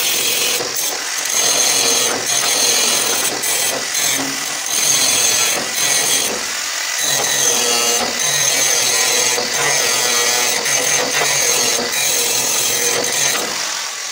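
Electric angle grinder grinding and sanding the steel of a truck's hood panel. It runs steadily and eases off briefly about seven seconds in.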